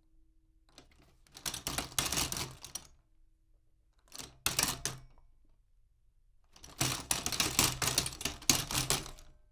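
Utility cart rolling in three pushes, its wheels and frame rattling and clattering: a run of about a second and a half, a short one, then a longer one near the end.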